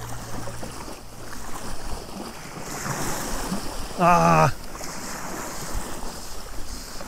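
Small waves washing onto a sandy shore, with wind buffeting the microphone. About four seconds in, a man gives a short, wavering shout as a sea trout takes the fly.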